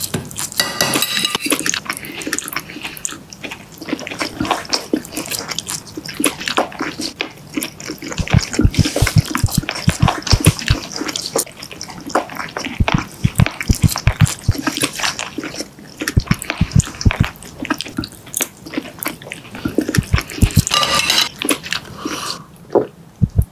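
Close-miked, wet eating sounds: a metal spoon scraping and clinking against a ceramic bowl of creamy pasta, then repeated open-mouthed chewing and lip smacking with a steady rhythm. Near the end a drinking glass is moved on the table. These are the kind of eating noises that trigger misophonia.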